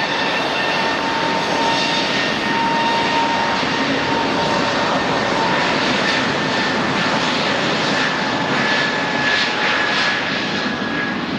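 Turbofan engines of a jet airliner, loud and steady: a dense rush of engine noise with a high whining tone running through it.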